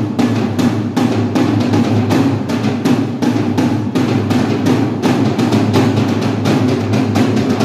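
Drum kit played with sticks: a fast, continuous stream of hits on the drums, several a second, over a steady low drum ring.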